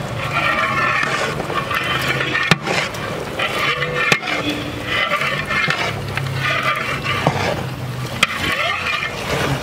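A long metal paddle stirring a big metal pot full of raw chicken pieces and masala. It makes wet, swishing scrapes in repeated strokes about every second or two, with a few sharp knocks of metal on the pot.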